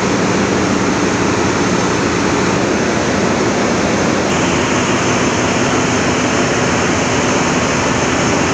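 Loud, steady din of a bulk carrier's engine room: heavy diesel machinery running, a constant dense noise with a steady hum under it. The upper part of the noise shifts slightly about four seconds in.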